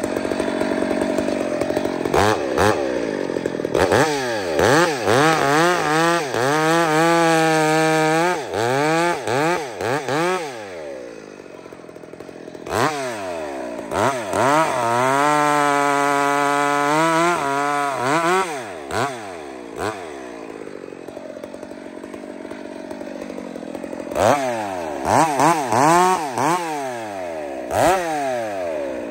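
Hybrid-built Husqvarna chainsaw revved in short bursts and settling twice into long steady full-throttle cuts through a big log, once about a quarter of the way in and once around the middle. It drops back to idle between the cuts, and near the end it is blipped again several times.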